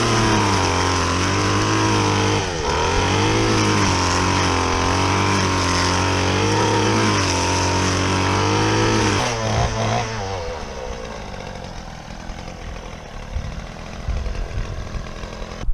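An engine running steadily, its pitch wavering a little, then fading away about nine to ten seconds in.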